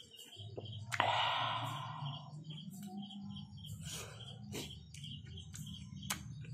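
Mouth sounds of a person eating instant noodles: a loud rushing slurp about a second in that fades over a second, and a few sharp clicks. A faint high chirp repeats quickly throughout.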